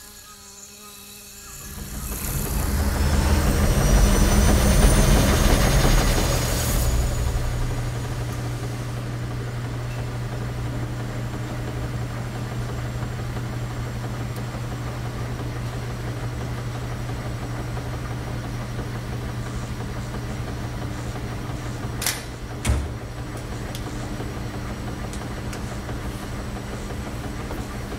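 A whoosh swells up with high whistling tones rising in pitch, loudest a few seconds in, then gives way to the steady low hum of a row of laundromat washing machines running. Two sharp knocks come about three quarters of the way through.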